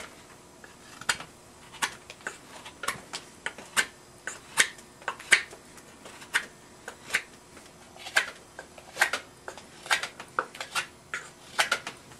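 Straight carving knife shaving the outside of a wooden bowl: a series of short, sharp slicing cuts, irregularly spaced, about one or two a second.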